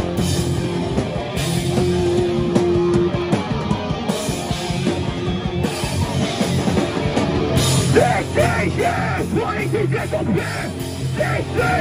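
Hardcore punk band playing loud live, with guitars and drums going on without a break.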